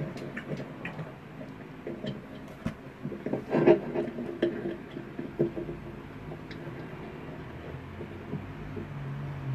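Microphone handling noise: irregular clicks, bumps and rustles as the mic is moved and adjusted, heaviest about three and a half seconds in, over a low steady hum.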